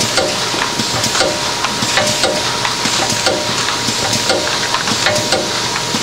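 DEL Pack ILPS intermittent lid plugging machine running: a constant mechanical hiss with a thin steady whine, and sharp clacks repeating about once or twice a second as the machine cycles.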